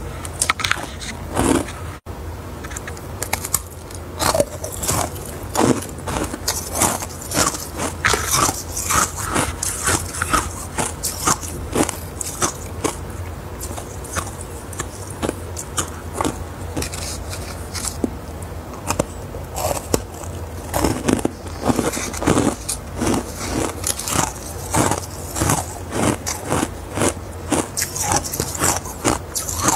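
Close-miked biting and chewing of frost-covered ice cubes: a fast run of sharp, crisp crunches that thins out for a few seconds in the middle, then picks up again.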